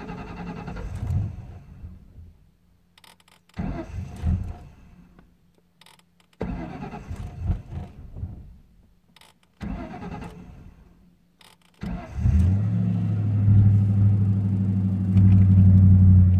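A 1998 Ford Mustang GT's 4.6-litre V8 tries several times to start and fails, each attempt dying away after a second or two. About twelve seconds in it catches and settles into a steady idle. This is the hard starting the owner is trying to diagnose; he says the engine misses when cold, and a new fuel filter and a cleaned MAF sensor have not cured it.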